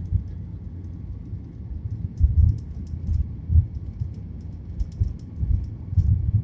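Inside the cabin of a SpiceJet Boeing 737 rolling on the ground: a low rumble with irregular thumps as the wheels run over the pavement, with faint light ticking rattles.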